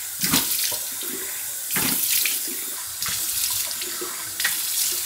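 Bathroom sink tap running, with water splashing as hands scoop it up to rinse a face, in surges about every second and a half.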